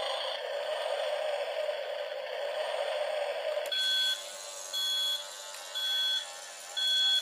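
Sound effects from a radio-controlled toy excavator's speaker: a steady hum, then about three and a half seconds in a warning beep starts, repeating about once a second.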